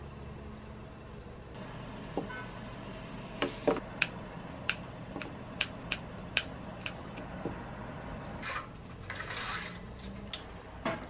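Scissors snipping the stems of a potted plant: a run of sharp clicks, several in a few seconds, over a low steady hum, with a short rustle near the end.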